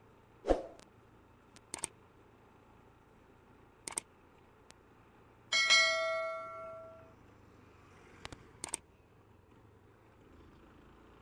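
A single bell-like metallic clang about halfway through, ringing out and dying away over about a second and a half, among a few scattered clicks and knocks.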